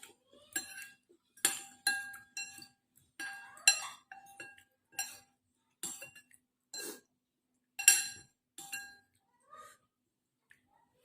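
Cutlery clinking against a bowl while eating noodle soup: about a dozen sharp, irregular clinks, each with a brief ringing tone.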